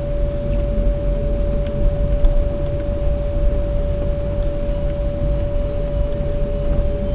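Car driving slowly, with a steady low engine and road rumble and a constant pitched tone over it.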